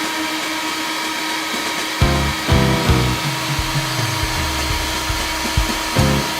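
A power tool's motor runs steadily with a constant whine, under instrumental background music whose notes come in at about two seconds and again near the end.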